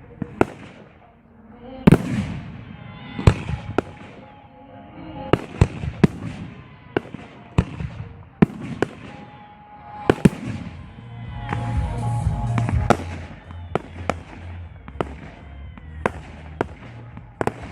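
Aerial firework shells bursting in a rapid, irregular series of sharp bangs, several a second at times, with a denser crackling stretch about two thirds of the way through. Music plays underneath.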